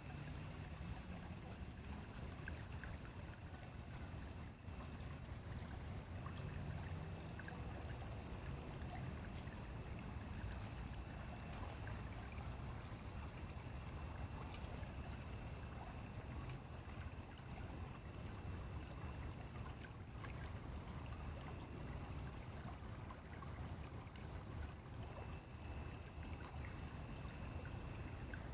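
Stream water flowing and burbling steadily, a continuous rushing noise heaviest in the low end. A higher hiss swells about six seconds in, fades, and returns near the end.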